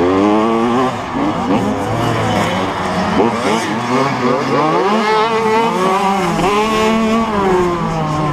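85cc two-stroke motocross bike engine under hard riding, its pitch climbing and dropping again and again as the throttle is opened and shut and the gears change.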